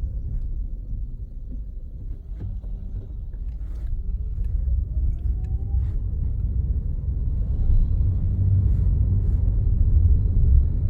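Car engine and road noise, a steady low rumble. The engine note dips about two seconds in, then rises in pitch over a few seconds as the car picks up speed, and settles to a steady run.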